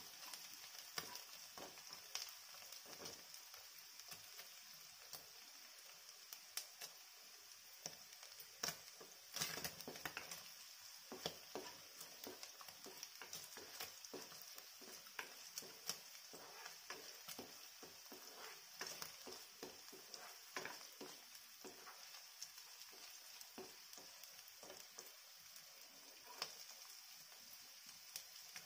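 Paneer cubes, chopped onion and green chilli frying in oil in a nonstick kadhai: a faint steady sizzle with scattered small pops and clicks, and spatula strokes on the pan.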